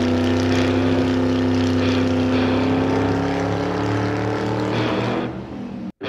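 Car engine sound effect running steadily, its pitch sinking slightly. It drops away about five seconds in and cuts out briefly near the end.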